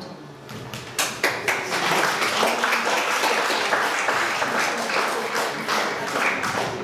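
A room of people applauding: the clapping starts about half a second in and quickly fills out into a steady round.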